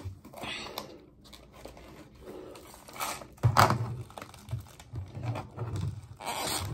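A stiff clear plastic lid on a Hershey's Colliders dessert cup being pried and twisted off with effort: plastic crackling and rustling with sharp clicks, the loudest crackle about three and a half seconds in. The lid is stuck tight and hard to remove.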